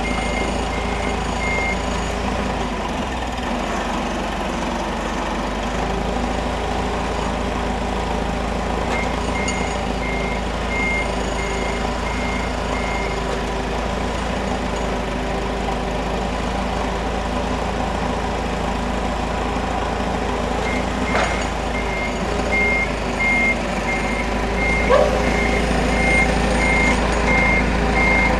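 Forklift engine running steadily with its reversing alarm beeping at about two beeps a second. The alarm sounds at the start, again for a few seconds about a third of the way in, and through the last quarter. Two sharp knocks come in the last third.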